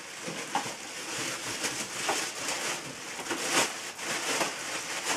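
Plastic wrapping crinkling and rustling as it is pulled and handled, with many small irregular crackles.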